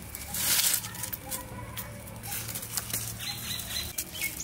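Dry firewood sticks being picked up and handled: a brief scraping rustle about half a second in, followed by scattered small snaps and crackles.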